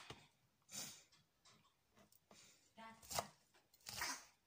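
Kitchen knife chopping onion on a plastic cutting board: a few separate knife strikes at uneven intervals.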